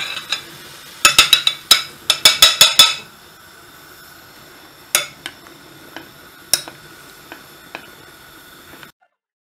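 A metal spoon clinking against a glass saucepan of melting chocolate, cream and butter. A quick run of about ten sharp, ringing taps comes about a second in, followed by a few lighter, spaced-out clinks as the mixture is stirred. The sound cuts off just before the end.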